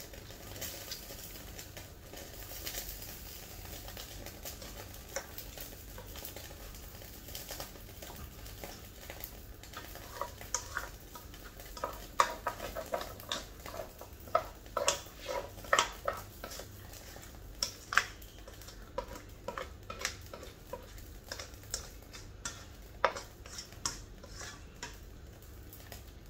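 A metal spoon scraping and clinking against a stainless steel pot and pan as thick, wet glutinous rice mixture is scooped out and spread. The clinks are sparse at first, then come thick and irregular, with the sharpest ones in the middle of the stretch.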